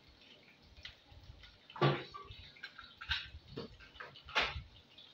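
Onion frying in hot vegetable oil in a frying pan, sizzling with irregular crackles and pops, a few of them louder.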